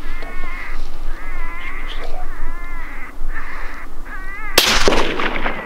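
Electronic predator call playing a repeating series of wavering, high animal distress cries to lure jackals, then a single rifle shot about four and a half seconds in.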